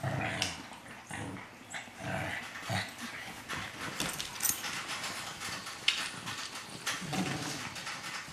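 Two Shih Tzu puppies play-wrestling on a hardwood floor: a few short low play growls and whines over scuffling and clicking of claws and paws on the wood.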